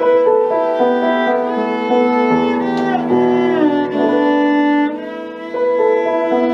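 Cello and piano playing a classical sonata: long bowed cello notes, some sliding in pitch, over piano.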